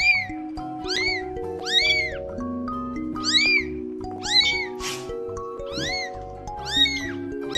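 A very young kitten meowing over and over: thin high-pitched calls, each rising then falling, about one every second. A brief rustling burst comes about five seconds in.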